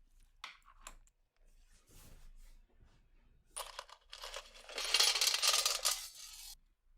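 Metal parts of a rusty Colt M1911 pistol clinking twice, then a few seconds of harsh scraping on the pitted metal as the rust is worked off.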